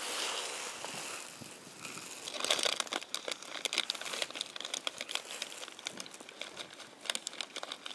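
Crinkling, crackling handling noise close to the microphone: small irregular clicks as finds are picked out of a plastic finds pot and turned in the fingers, busiest in the middle.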